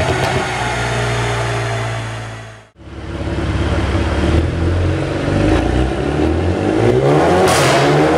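Mercedes-AMG A35's turbocharged 2.0-litre four-cylinder running through a full Akrapovic exhaust with the petrol particulate filter removed, first at a steady speed. After a brief drop to silence about three seconds in, it runs again under load on a chassis dynamometer, its pitch climbing near the end with two short bursts of hiss.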